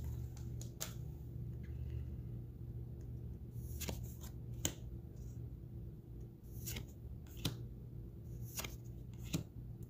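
Magic: The Gathering cards being flipped through one at a time in the hands, each card sliding off the stack with a light snap or flick, several times at uneven intervals. A low steady hum runs underneath.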